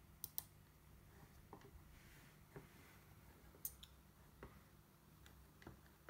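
Small button clicks over a quiet room: a sharp double click, press then release, just after the start and another about three and a half seconds in, with fainter single ticks between.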